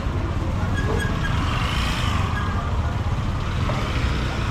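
Steady low rumble of vehicle engines.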